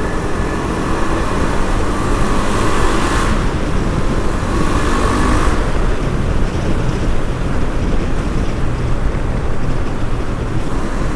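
KTM Adventure motorcycle riding at speed through a road tunnel: engine running under a steady rush of wind and road noise. The rush is stronger for the first three seconds and again briefly about five seconds in.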